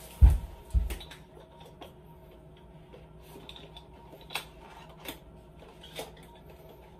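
Two dull thumps about half a second apart near the start, then light taps and clicks as leather dress shoes are handled.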